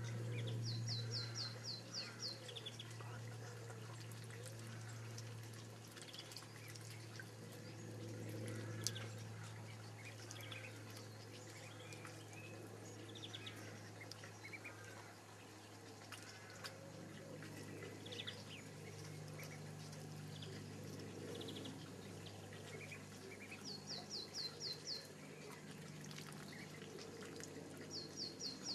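Ducklings dabbling and drinking in a shallow tray of water: small splashes and drips, with soft peeping calls. A quick run of high chirps comes three times, and a steady low hum runs underneath.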